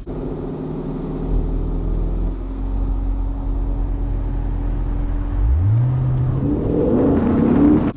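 Chevrolet Corvette C7 Stingray's 6.2-litre V8 and exhaust running steadily at low revs. About five and a half seconds in the revs climb and the car accelerates, getting louder toward the end.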